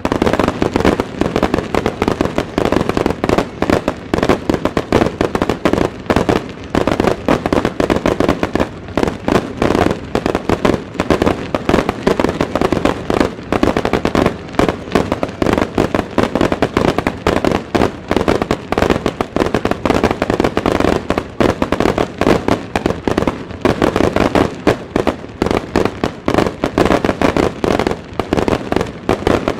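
Wide starmine fireworks barrage: a loud, rapid, unbroken volley of shell launches and bursts, the bangs coming too fast to count.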